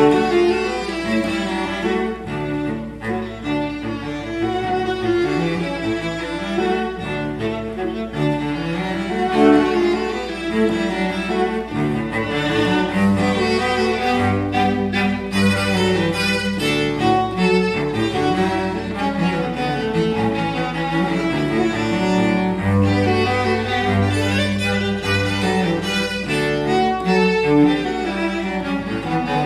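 Viola and cello duo playing a classical piece, bowed, with quick running notes. The cello holds long low notes twice, about halfway through and again about three-quarters through.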